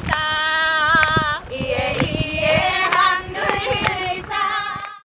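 Women's voices singing a held, chant-like Ainu dance song, with sharp hits now and then; it cuts off suddenly just before the end.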